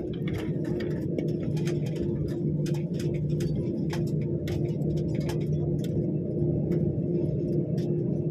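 Jet airliner cabin noise during the landing rollout on the runway: a steady engine hum with two held tones, and irregular light clicks and rattles over it.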